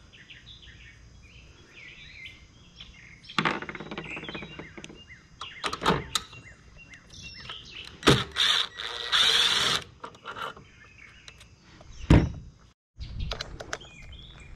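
Knocks, clatter and a loud scraping rush from a lawnmower and tools being handled, ending in a heavy thump about twelve seconds in. Birds chirp faintly at the start.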